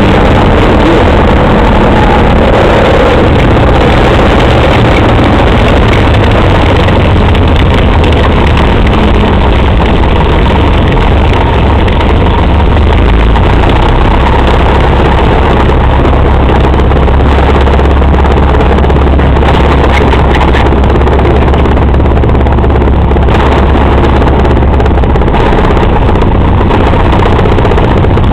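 Single-engine propeller plane's piston engine running at low power while taxiing, heard loud and steady from inside the cockpit. Its low note shifts slightly about twelve seconds in and again near the end.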